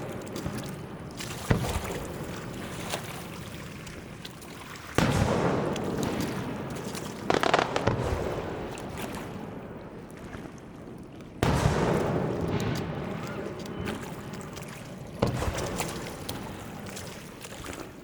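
Fireworks display: aerial shells bursting in sudden booms every few seconds, about five in all, each followed by a long rolling echo that slowly dies away, with crackling between bursts.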